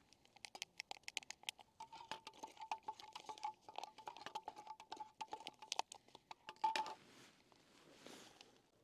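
Dry food poured from a sachet into a metal pot, the grains pattering in quick, irregular ticks over a faint steady tone, with one louder clink near the end.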